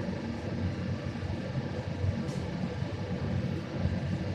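Steady low rumble of a commercial kitchen's exhaust hood fan and gas burners running, with a brief faint hiss about two seconds in.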